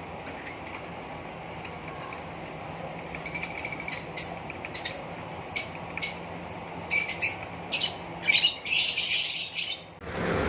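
Fischer's lovebirds chirping over a steady low hum. About three seconds in, a string of short, sharp high chirps begins and grows denser, ending in a rapid chattering run near the end.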